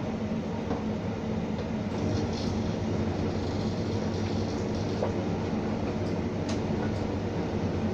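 Electrolux tumble dryer running on its cotton programme: a steady hum from the motor and fan as the drum turns, with a few faint clicks.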